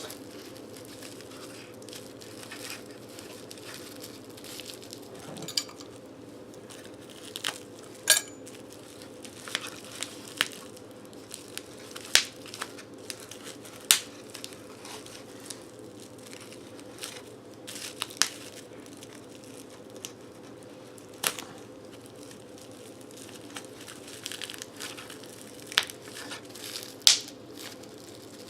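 Packaging being opened and handled: scattered crinkling and tearing rustles with sharp clicks, over a steady faint hum.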